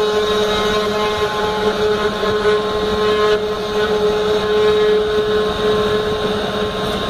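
Small CNC router spindle motor running at a steady whine while its end mill cuts into a wooden board, spraying sawdust during 3D relief milling.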